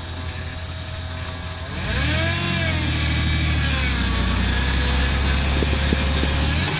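Toyota Land Cruiser 90-series engine revving up about two seconds in, then holding steady and loud under load as the 4x4 crawls through deep mud ruts, with a few short knocks near the end.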